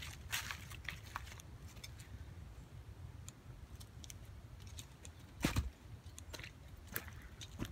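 Footsteps crunching and rustling through dry fallen leaves, with the loudest crunch about five and a half seconds in.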